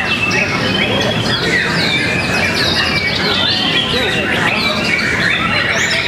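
Several caged songbirds singing at once: a dense tangle of rapid whistled phrases and chatter that never lets up, over a low hum of crowd chatter.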